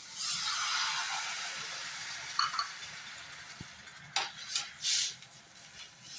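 Tamarind water hitting a hot pan of fried tomato and tempering: a sudden sizzling hiss that fades over a few seconds, then a few clinks and scrapes of a spoon stirring in the pan.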